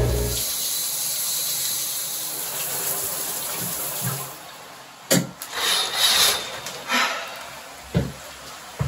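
Water running in a bathroom, a steady hiss that fades out over the first four seconds or so, followed by a few sharp knocks and rustles.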